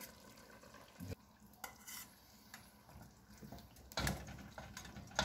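Spatula scraping and clinking against a stainless steel pot as pieces of fish are lifted out, a few scattered light knocks, the loudest about four seconds in.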